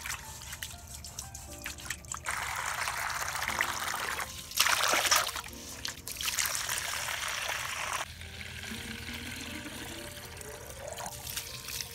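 Water from a garden hose splashing into a stainless steel bowl, loudest about halfway through, then running into a plastic sprayer bottle with a pitch that rises as the bottle fills.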